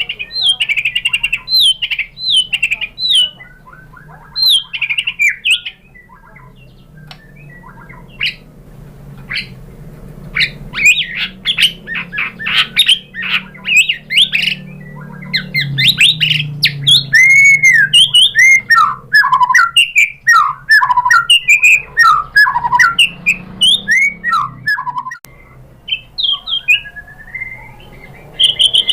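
White-rumped shama singing a fast, varied song of whistles, sliding notes, rapid chirps and trills, thinning out for a few seconds early on before becoming dense again.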